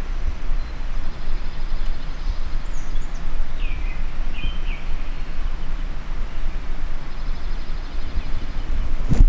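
Wind buffeting the microphone as a steady low rumble, with faint bird calls and trills in the background. A single sharp knock near the end.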